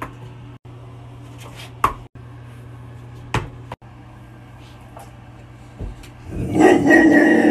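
A small rubber ball knocking on a tile floor a few times, short sharp clicks a second or two apart, over a steady low hum. Near the end a much louder, rougher sound takes over for about a second and a half.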